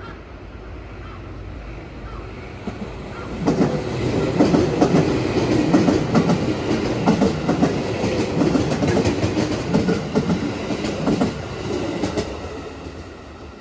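JR West 221 series electric train passing close by, its wheels clicking quickly and unevenly over the rail joints. The rumble rises sharply about three seconds in, stays loud for some nine seconds, and fades as the last car goes by.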